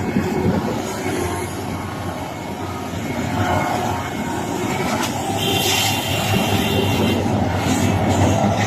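Komatsu PC1250 heavy excavator's diesel engine and hydraulics running steadily with a deep hum, with a brief high metallic squeal a little past halfway.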